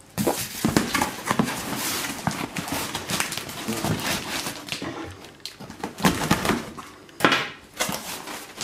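Cardboard box and its paper packing being handled and pulled open: continuous rustling and crinkling with scattered knocks and scrapes.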